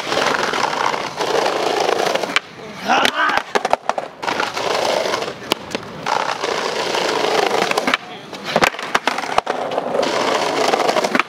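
Skateboard wheels rolling on stone paving in long stretches with short breaks, with scattered sharp clicks and knocks from the board.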